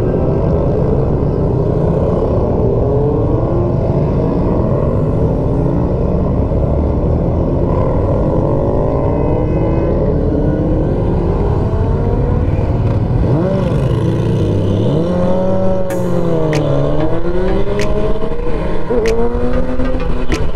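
Several motorcycle engines accelerating hard through the gears, their pitch climbing again and again and overlapping, with rising and falling revs later on. A few sharp cracks come in the last few seconds.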